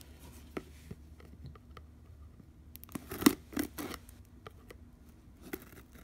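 A cardboard card box being opened by hand. A few faint clicks come first, then three sharp snaps or snips in quick succession about three seconds in.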